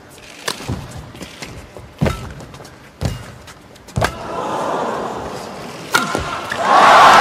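Badminton rally: five sharp racket strikes on the shuttlecock, one every second or so, under a crowd murmur that swells from about four seconds in. Near the end the crowd breaks into a loud cheer as the point is won, cut off suddenly.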